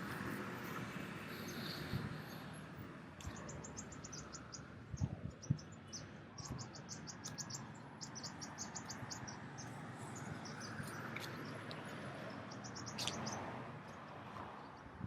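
Rapid, high-pitched chirping in short repeated runs over steady outdoor background noise, with a few soft thuds.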